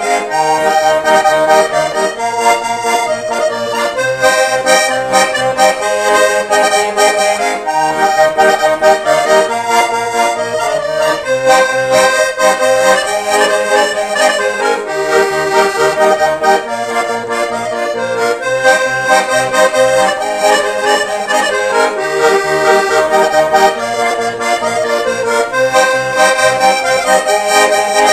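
Button accordion playing a lively traditional dance tune: a melody over held chords, with a steady bass-and-chord rhythm pumping underneath.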